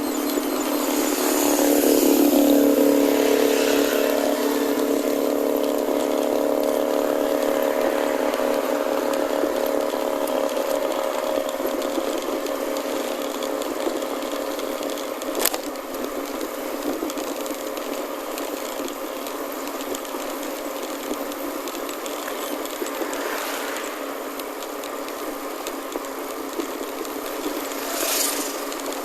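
An engine running, its pitch shifting over the first few seconds and then holding steady, with a sharp click about halfway through.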